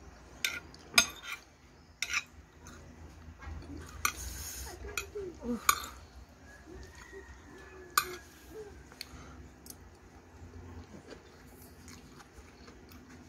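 Metal spoon clinking and scraping on a china plate of rice and curry while eating, in scattered sharp clicks, the loudest about a second in and at about eight seconds.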